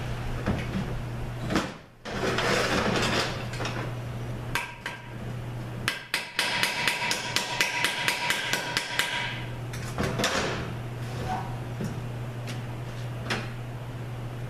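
A hammer rapping on a Ford A4LD transmission case: a quick even run of about fifteen strikes, roughly five a second, each ringing with a metallic tone. Before it, clunks and scraping as the heavy case is shifted on the bench.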